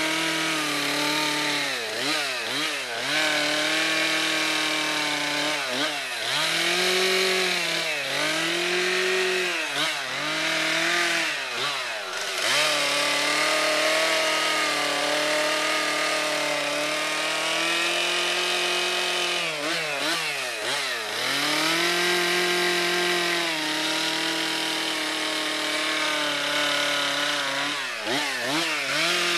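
Petrol chainsaw carving into a wooden stump, running at high revs. Several times the throttle drops and opens again, so the engine pitch dips and swings back up.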